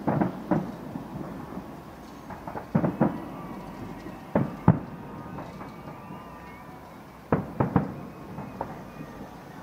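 Aerial fireworks shells bursting: sharp bangs in clusters of two or three a few seconds apart, each followed by a rumbling echo.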